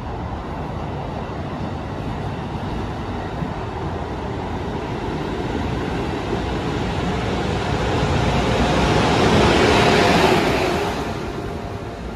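Amtrak Acela train passing close by at speed: a steady rush of wheel and air noise that builds to its loudest about ten seconds in as the rear power car goes by, then fades.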